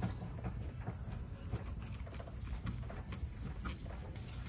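A steady, high-pitched drone of insects chirring outdoors, with a few faint scattered taps.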